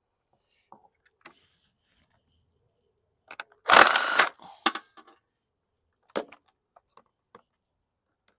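A wrench working a stubborn nut on a lawn mower engine: scattered metal clicks, with a loud harsh rasp lasting about half a second about four seconds in, a shorter one just after, and a sharp click near the end.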